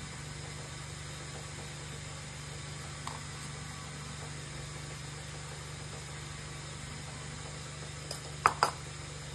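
A steady low hum, a faint tap about three seconds in, then near the end two quick ringing clinks of a steel spoon against a stainless steel bowl of idli batter.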